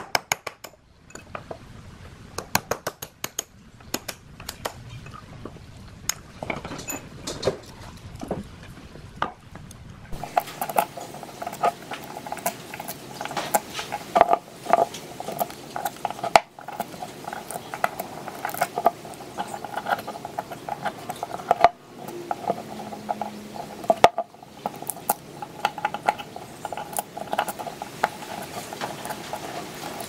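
Irregular metallic clicks, taps and scrapes of hand tools, a punch and then needle-nose pliers, working in the slots of an old ceiling fan motor's stator to pry out its old copper windings. From about a third of the way in, a faint steady hum runs under the clicks.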